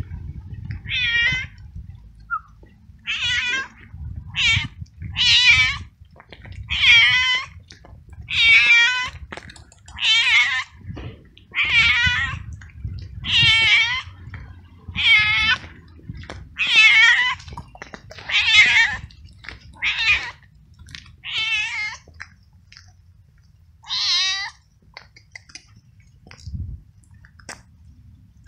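Tabby cat meowing loudly and over and over, about one meow every one and a half to two seconds, each call wavering in pitch. The calls stop a few seconds before the end. The cat is a hungry stray calling as it follows the person who has food for it.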